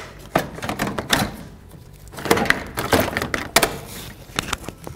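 Plastic radiator fan shroud knocking, clicking and scraping against the engine-bay parts around it as it is worked out by hand, in an uneven string of sharp knocks with denser clusters about a second in and through the middle.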